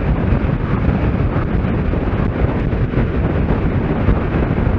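Onboard a Kawasaki Z750S at road speed: steady wind rush on the microphone with the motorcycle's inline-four engine running underneath.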